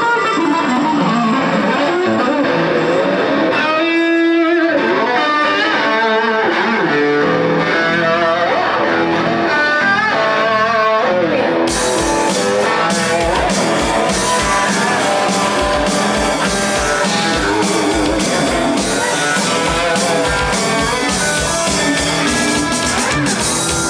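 Live rock band: electric guitar playing a melodic line, joined about halfway through by drums with cymbals and a steady kick beat as the full band comes in.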